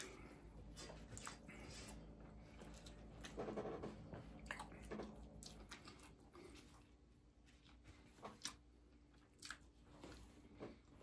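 Faint chewing and wet mouth sounds of someone eating, with scattered short smacks and clicks.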